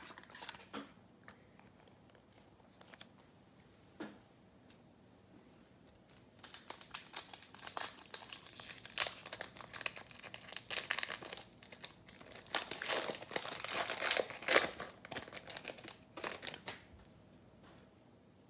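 Foil wrapper of a 2021 Bowman baseball card pack being torn open and crinkled by hand. A few light taps come first, then dense crinkling for about ten seconds that dies away near the end.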